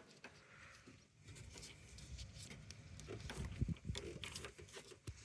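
Faint clicks and knocks of hands working a washing machine's pressure switch loose from its mounting, with a few low straining grunts.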